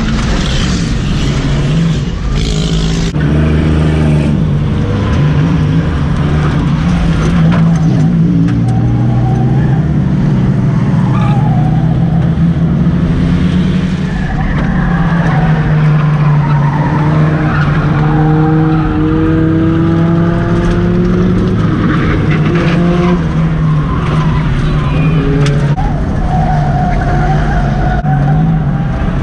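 Six-cylinder enduro race car's engine running hard, heard from inside the cabin, its pitch climbing several times as it accelerates, with tires skidding and squealing.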